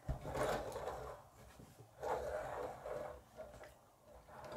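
Plastic K'nex toy car handled and turned on a wooden table: two short stretches of rustling and rolling from its plastic wheels and parts.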